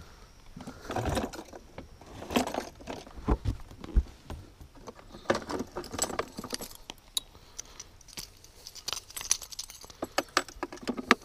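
Metal clinking and rattling of a musky lure's treble hooks, split rings and a steel leader snap, as one lure is unclipped and another is handled and clipped on. The clicks come irregularly, in quick clusters.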